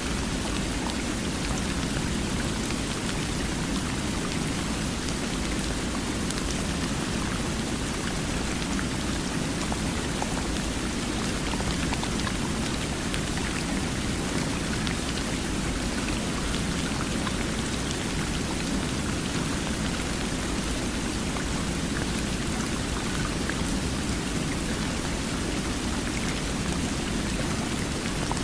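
Steady, unbroken water sound at an even level, fullest in the low range with a fine hiss above it.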